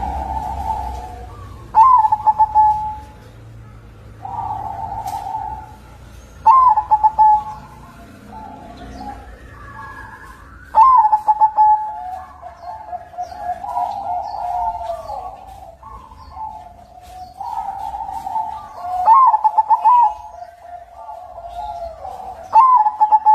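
White (kapas putih) zebra dove, the perkutut, singing in full form: repeated cooing phrases every few seconds, each opening with a quick loud stutter of notes and running into held coos.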